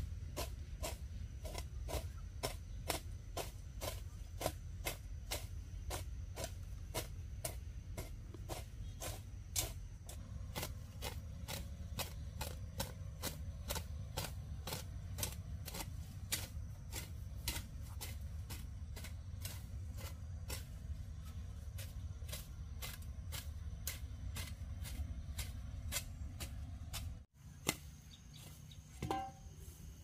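Even, rhythmic knocking, about three knocks a second, over a low steady rumble; it stops suddenly near the end.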